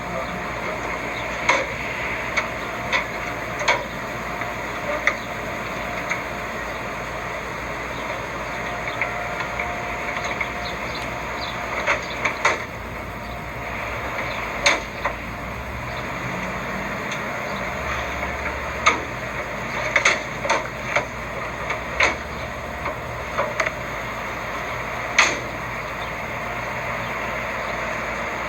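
Scattered sharp knocks and clicks, about fifteen at irregular intervals, over a steady background hiss.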